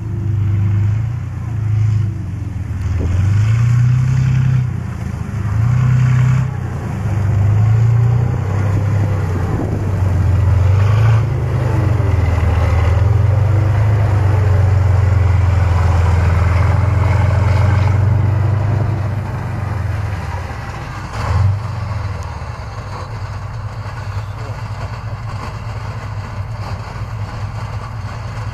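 Engine of a tracked armoured vehicle running loud, its pitch rising and falling as it revs while driving. About 20 seconds in it drops to a lower, steadier running, with one short surge soon after.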